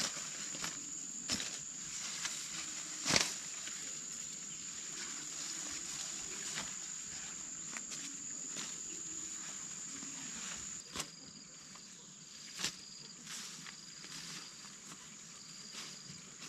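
Outdoor ambience of insects: a steady high-pitched drone, broken by scattered light taps and knocks, one louder knock about three seconds in. About eleven seconds in the drone stops and a shorter note takes over, repeating roughly once a second.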